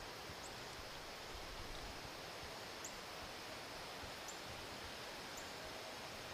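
Faint, steady outdoor background hiss with a handful of short, high chirps scattered through it, a small bird calling now and then.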